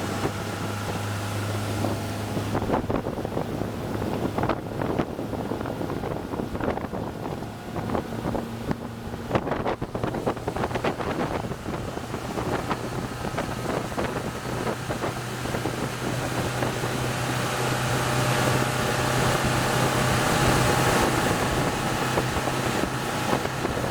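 Mercury 150 hp outboard running at high speed on plane, a steady engine drone under wind noise on the microphone. Scattered knocks come through the first half, and the drone grows louder in the second half.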